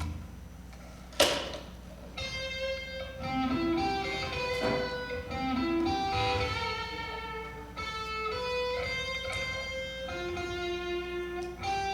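Electric guitar playing slow, held single notes one after another over a steady low hum, after one sharp loud crack about a second in.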